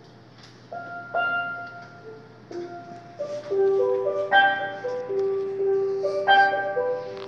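Solo steelpan playing a slow melody: a brief lull, then a few single struck notes ringing out, and from about three seconds in a busier run of notes with long held tones.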